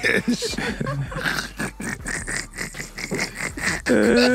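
Men laughing hard together in short irregular bursts, with a held shout of a voice near the end.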